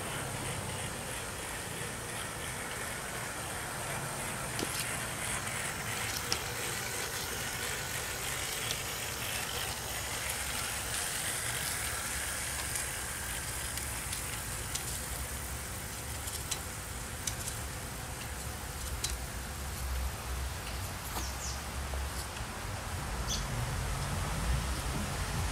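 G-scale model diesel locomotives rolling along garden-railway track: a steady running noise from motors and wheels on the rails, with scattered sharp clicks.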